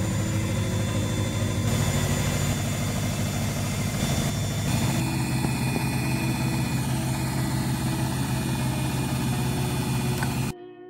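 Countertop blender motor running at full speed, whirling raisins and white fruit chunks into a smoothie. It runs as a loud steady hum with a slight change in tone about halfway, then cuts off abruptly just before the end.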